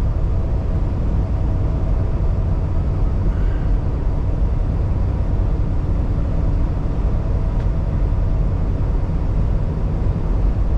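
Steady drone of a 2016 Kenworth T680 semi truck on the move, heard inside the cab: its Paccar MX-13 inline-six diesel running at an even pace along with tyre and road noise, deepest at the low end with a few faint steady tones.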